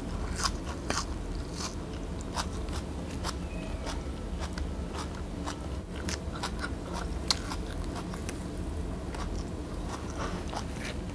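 Close-miked chewing and mouth sounds of someone eating braised pork humba and rice by hand, with many short sharp clicks and smacks scattered throughout over a steady low hum.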